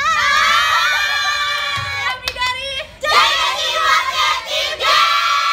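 A group of young women shouting and cheering together in high voices. It is one long excited shout that falls away just before three seconds in, then a second burst of cheering.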